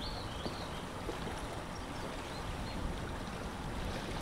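Steady lakeside wind ambience with water lapping, and wind rumbling low on the microphone. A few faint bird chirps sound in the first second.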